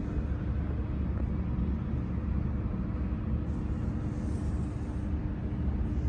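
Steady low background rumble with a constant hum running through it.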